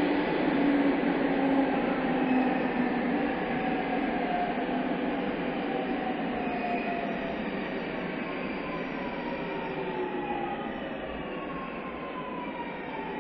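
Onboard running sound of a JR East 209 series 500 subseries electric train slowing for a station. Its traction motors whine in several tones that fall steadily in pitch over the rumble of the wheels, and the sound eases gradually as the train decelerates under braking. Heard through a mobile phone's voice recorder.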